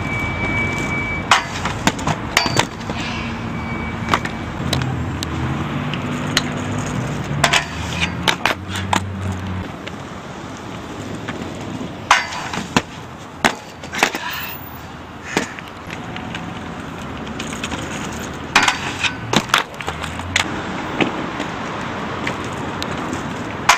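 Aggressive inline skates rolling over concrete and grinding along a metal handrail, with a string of sharp clacks and knocks from the skates hitting the rail and landing, over repeated attempts.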